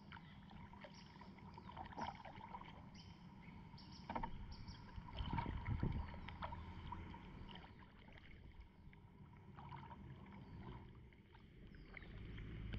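Faint splashing and dripping of a kayak paddle dipping into calm river water, stroke after stroke, loudest about five seconds in.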